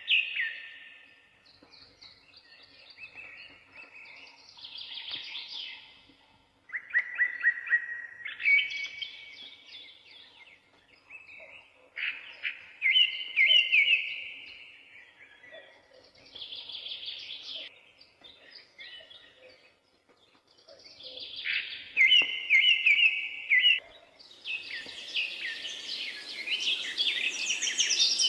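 Songbirds singing: short phrases of quick, high chirps and trills every few seconds, with pauses between. Near the end a steady hiss comes in under denser chirping.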